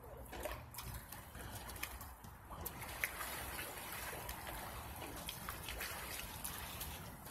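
Swimming-pool water sloshing and trickling, with scattered small ticks and splashes and one sharp click about three seconds in.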